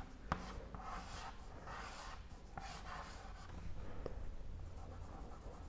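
Chalk scratching faintly on a chalkboard as a word is written, with a few light taps.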